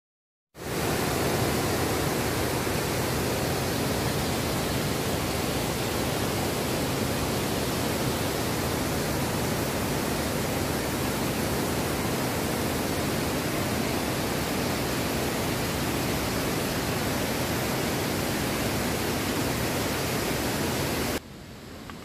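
Waterfall: a steady, dense rush of falling water with no breaks. It cuts off suddenly near the end.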